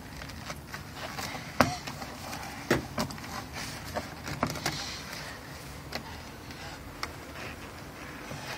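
Irregular plastic clicks and knocks as a replacement side-view mirror housing is handled and pressed into its mounting on the car door, the sharpest about a second and a half in.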